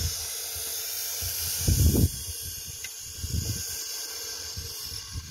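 Wind buffeting the microphone: irregular low rumbles, strongest about two seconds in, over a steady hiss.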